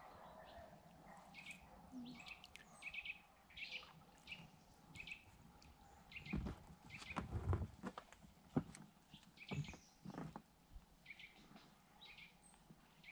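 A small bird repeating a short, high chirp about twice a second. Midway, a few dull knocks and thumps come from the inflatable boat and its oars being handled.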